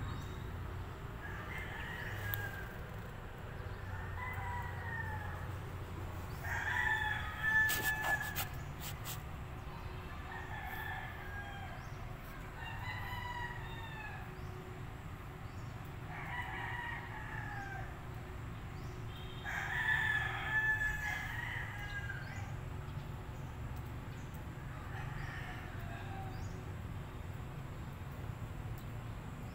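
Repeated short animal calls, each about a second long and falling in pitch, coming every two to four seconds over a steady low background hum. Two of the calls, about a quarter and two-thirds of the way through, are louder than the rest.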